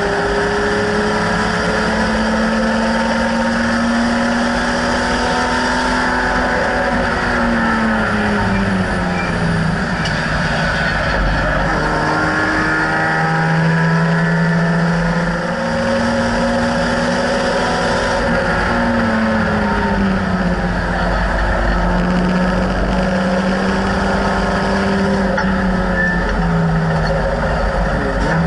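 BMW E30 race car's engine heard from inside the cabin at race pace, its pitch climbing and falling several times as the car speeds up and slows, over steady wind and road noise.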